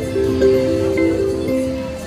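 Soft background music: a gentle melody of short, steady notes stepping up and down.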